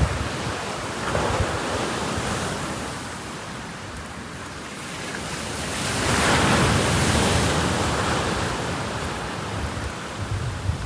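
Ocean waves washing onto a beach, one wave breaking and swelling in about five seconds in, then ebbing away. Wind buffets the microphone with low rumbles near the start and end.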